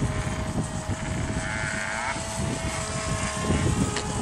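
RC model airplane's motor and propeller in flight, a steady thin whine that stops about three and a half seconds in, under heavy wind buffeting on the microphone.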